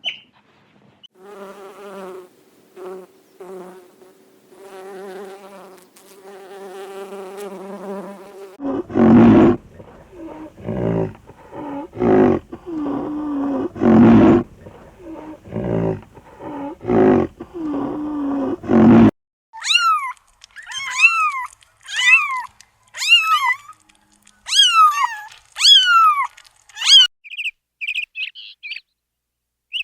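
A run of animal calls: a repeated, steady pitched call for the first several seconds, then a series of loud, rough roaring calls, then from about two-thirds of the way in a bird's quick chirps, each falling in pitch.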